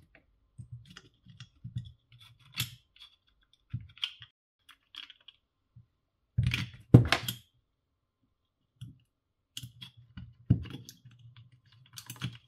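Handling noise as an Echo Dot smart speaker is taken apart by hand: scattered light clicks and taps of its plastic parts, circuit board and a small screwdriver, with two louder knocks about six and a half and seven seconds in.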